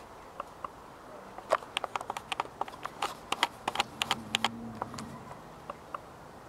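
A quick, irregular run of sharp clicks and taps, a few at first, then a dense cluster for about three seconds, then a few stragglers.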